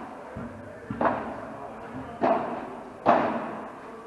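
Padel rally: the ball being hit back and forth with rackets, sharp echoing pops about a second apart, three loud ones and a fainter one near the start.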